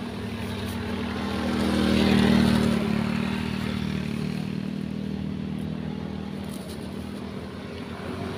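Two motorcycles passing close by on the road, their engines loudest about two seconds in, then fading away.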